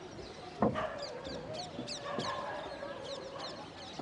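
Birds giving quick, high descending chirps, two or three a second, over a long held tone that lasts about three seconds. A sharp knock about half a second in is the loudest moment.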